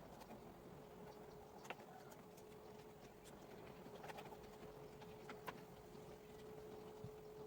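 Near silence with a faint steady tone a little below 500 Hz and a few light clicks.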